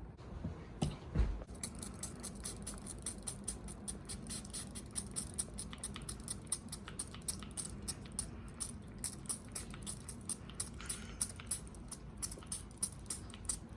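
A fast, uneven run of light, sharp clicks, about four a second, after a couple of duller knocks in the first second or so.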